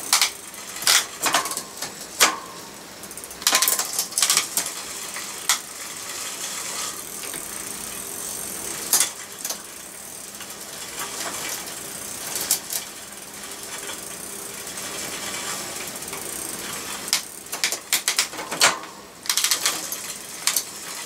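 Bicycle drivetrain turned by hand: the chain runs over the rear freewheel sprockets and derailleur with a steady whir and ticking, broken by irregular clicks and clunks as it shifts. The derailleur is being adjusted because it won't shift into first gear, a fault traced to a set screw rather than the cable.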